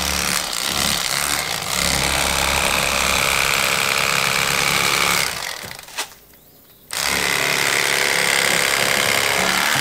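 Corded electric fillet knife running, its reciprocating blades buzzing as they slice through a crappie. It shuts off a little past halfway, with a single click in the short pause, then starts up again.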